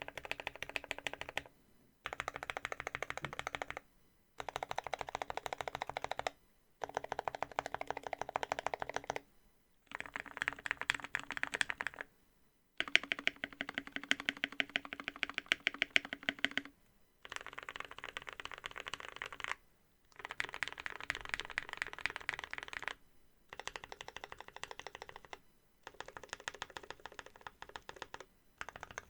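Typing on a mechanical keyboard with lubed and filmed Gateron Black Ink linear switches, GMK keycaps and an aluminium plate and case: fast runs of keystrokes lasting a few seconds each, broken by short pauses.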